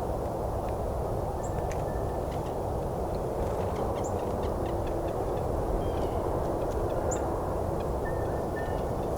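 Faint calls of a red-breasted nuthatch a few feet away, hard to hear, with thin high call notes every two to three seconds, over a steady low rumble.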